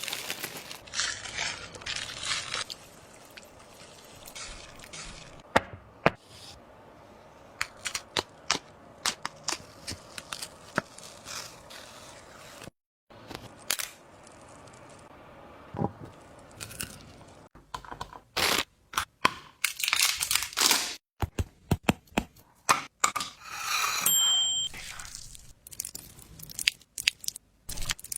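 Handling noises: repeated scraping and crinkling with many sharp clicks and taps, broken by a few abrupt cuts to silence.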